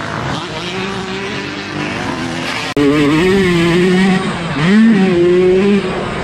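Yamaha YZ125 two-stroke single-cylinder dirt-bike engine revving, its pitch rising and falling with the throttle. About three seconds in the sound cuts abruptly and comes back louder, with a quick rev up near the five-second mark.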